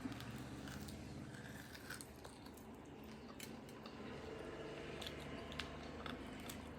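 A person chewing bone marrow softly, with a few faint clicks, over a low steady hum.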